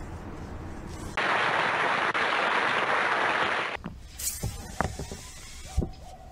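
Steel-wire chimney brush, weighted with old hammer heads, rasping up through a sooty brick flue for about two and a half seconds. Then come a few sharp knocks as the brush and weights come out over the top of the chimney.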